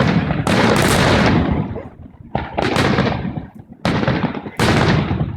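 Fireworks display: a quick run of loud, sharp aerial shell bursts, about six in all, coming in pairs, each trailing off in rumble and crackle.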